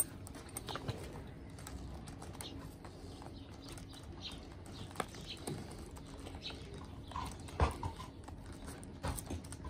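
Leather harness strap being worked through a metal buckle on a pony's harness saddle: scattered faint clicks and taps of buckle and fittings, with one louder knock about three-quarters of the way through.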